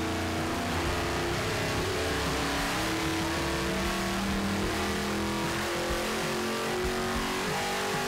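400-cubic-inch small-block Chevy V8 with long-tube headers, on its factory intake and carburetor, running a dyno pull. Its pitch climbs steadily as the revs sweep up under load.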